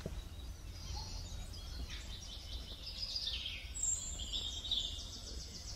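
Birds chirping and trilling, in rapid runs of short high notes with some gliding calls, over a steady low rumble.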